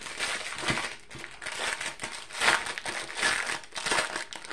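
A foil-and-plastic packet crinkling as hands handle and pull it open, in a run of rustling bursts about once a second.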